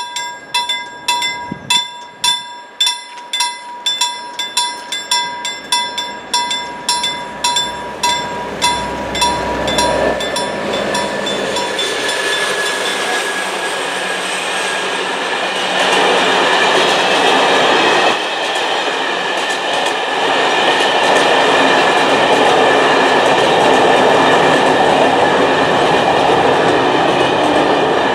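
Level-crossing warning bell ringing about twice a second, stopping about ten seconds in as a diesel freight train arrives. The locomotive passes, then a long string of empty timber wagons runs over the crossing with a steady clickety-clack of wheels on the rails.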